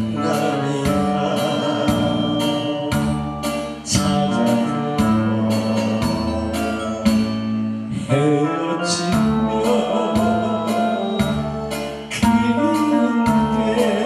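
A man singing a Korean trot song into a microphone over a recorded backing track with a steady beat and bass line, amplified through PA speakers.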